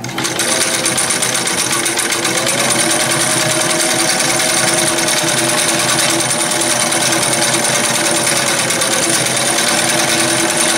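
A 1970s Singer Fashion Mate 360 electric sewing machine, freshly serviced, starting up at once and sewing at a steady fast speed. A motor hum with a rapid, even needle clatter; the motor's pitch settles after about two seconds.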